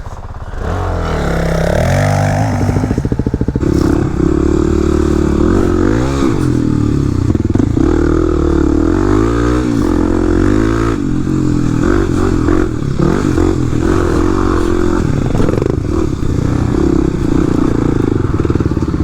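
Dual-sport dirt bike's single-cylinder four-stroke engine under way, its revs rising and falling again and again as the bike is ridden. The engine builds up from a lower level in the first second, then runs loud throughout.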